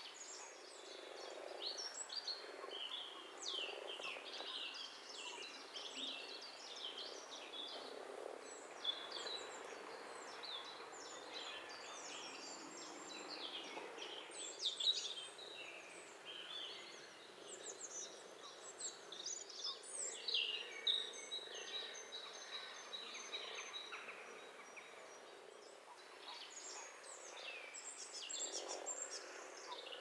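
Spring birdsong from several birds: many short chirps, trills and quick whistled notes overlapping, over a low croaking of frogs that is strongest near the end.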